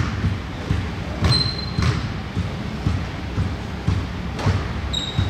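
Basketball game sounds in a gym: a ball bouncing on the court floor with dull thuds and sharp knocks, and sneakers squeaking briefly twice, about a second in and near the end, with the echo of a large hall.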